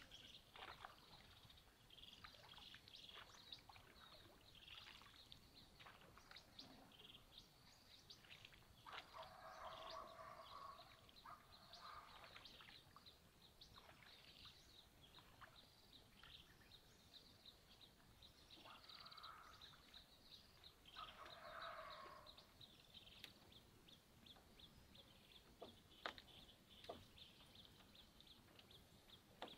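Faint outdoor ambience of birds calling, with a steady run of short high chirps and two longer calls, about ten and twenty-one seconds in. There are a couple of light clicks near the end.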